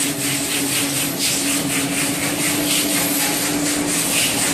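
Nail factory machinery running: a steady mechanical hum under a rapid, uneven metallic clatter of wire nails being worked.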